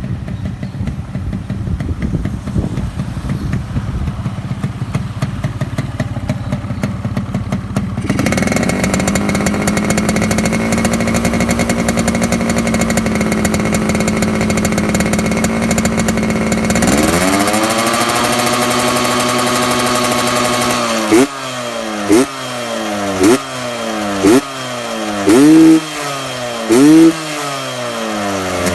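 Yamaha RX-King's two-stroke single-cylinder engine on its stock exhaust, with the throaty 'ngorok' growl. It runs unevenly at first, then holds a steady higher speed from about eight seconds in and is raised again a little after halfway. In the last seven seconds it is blipped sharply about six times, each rev climbing and dropping back.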